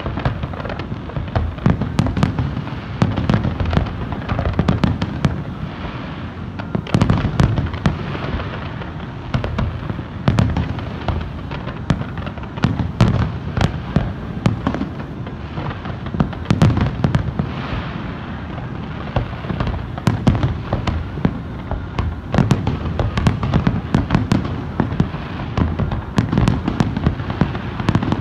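Large fireworks display going off without pause: many overlapping bangs of aerial shells bursting, over a continuous low rumble.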